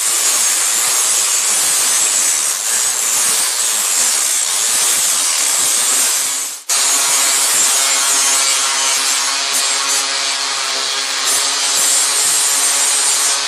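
Angle grinder with an aluminum grinding stone grinding down the edge of an aluminum plate: a loud, harsh, steady grinding. It cuts out for an instant about halfway through, then resumes with the motor's whine more audible.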